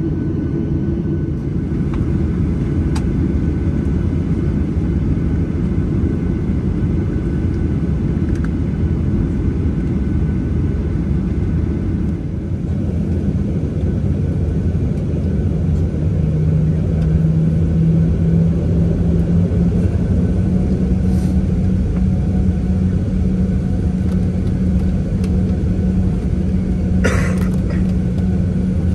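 Steady low cabin hum inside a Boeing 737-800 standing at the gate, with the ventilation running. A low tone in the hum steps up in pitch about halfway through, and there is a brief clatter near the end.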